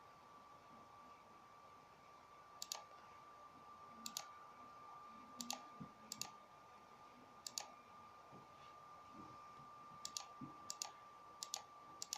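Faint, sharp clicks about every second, unevenly spaced, over near silence with a faint steady high hum.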